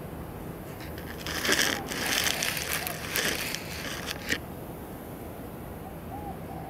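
A dry, crackling rustle lasting about three seconds, starting about a second in and ending with a sharp tick.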